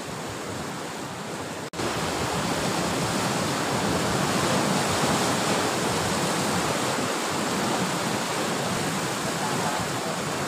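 Steady rush of sea surf breaking against the shore and rocks. It drops out for an instant about two seconds in and returns a little louder.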